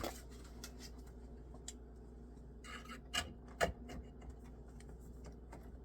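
Zip ties being worked: a short ratcheting rasp about two and a half seconds in, then two sharp clicks, the second the loudest, like tails being snipped with dull cutters. A faint steady hum underneath.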